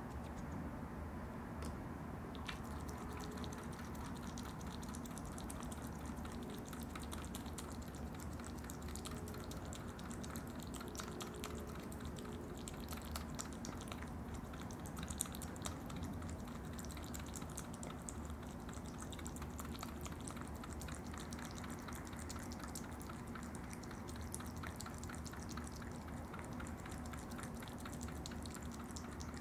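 Opossums eating yogurt: a steady run of small wet clicks and smacks as they lap and chew, with one sharper click about halfway through.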